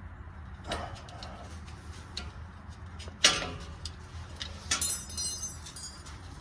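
Metal tools and parts clinking during hand work on a car's exhaust: a sharp clank about three seconds in, then a quick run of light, ringing metallic clinks, over a low steady hum.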